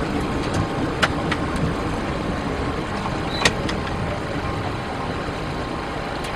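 Steady engine and airflow rumble of an aircraft heard inside the cockpit, with a few sharp clicks about a second in and one louder click about three and a half seconds in.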